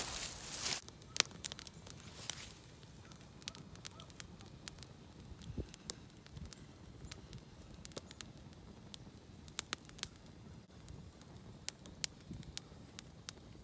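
Small wood campfire crackling, with scattered sharp pops at irregular intervals, after a brief rustling noise at the start.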